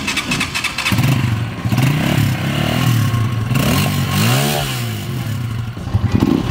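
Vento Thriller 200's carbureted single-cylinder engine started on the electric starter: a short crank, and it catches about a second in. It is then blipped with the throttle several times, the pitch rising and falling with each blip.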